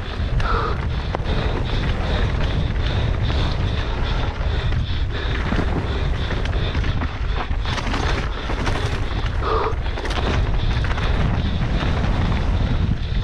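Wind buffeting the microphone and the rattle of a Specialized Enduro mountain bike running fast down a rough dirt trail, with sharp knocks from hits over rocks and bumps.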